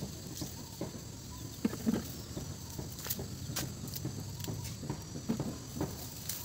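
Scattered snaps, clicks and rustles of harvested lemongrass stalks being trimmed with a knife and galangal rhizomes being handled, over a low steady background rumble.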